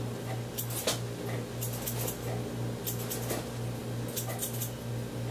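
Hair-cutting scissors snipping through hair: quick crisp snips in small bunches about once a second, over a steady low hum.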